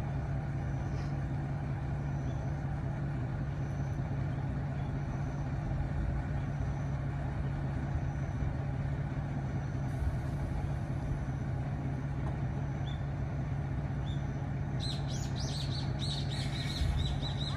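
Diesel railcar idling at a station platform, a steady low engine hum. Near the end a bird chirps repeatedly in short high notes.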